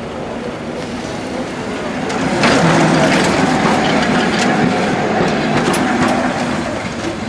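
Vintage electric tramcar passing close by on a curve: its steel wheels rumble and clatter over the rails with sharp clicks, growing loud about two seconds in and staying loud until near the end.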